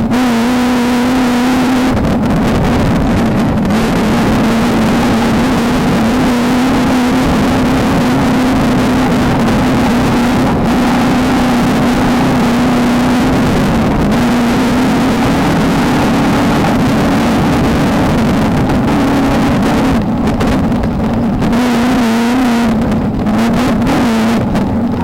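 Volkswagen Beetle desert race car under way at speed, its engine running hard over a constant noisy rush. The engine note holds mostly steady but drops and climbs again about two seconds in, around the middle, and again near the end, as the throttle or gear changes.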